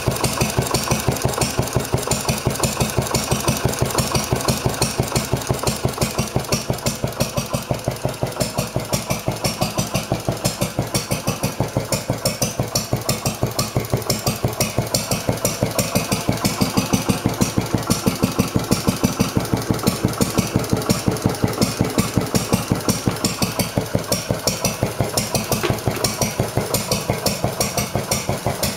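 Wolseley WD8 single-cylinder stationary engine running steadily with an even, rapid exhaust beat. It has just been rebuilt and, in the owner's words, is not running perfect and still needs a few little adjustments.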